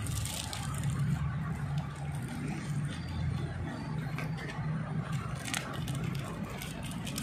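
Faint rustling and crinkling of a plastic wrap and twine being handled as string is tied around a moss-filled air layer on a rubber plant branch, with a few small ticks. Under it runs a steady low motor-like hum, the loudest sound throughout.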